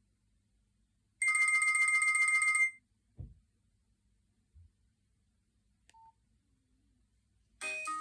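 Nokia 6136 mobile phone's speaker playing its preloaded ringtones: a trilling ring tone for about a second and a half, then a thump and a short beep, and near the end a new ringtone melody starts.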